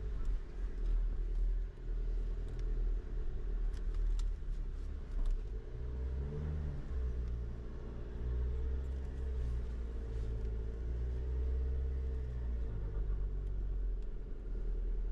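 Inside the cabin of a GWM P-Series bakkie on the move: a steady low rumble of engine and road noise that wavers a little in pitch, with a few faint clicks.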